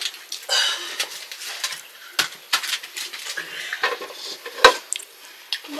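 Cooking pots and utensils clinking and scraping, a string of light knocks with one sharper knock a little under five seconds in.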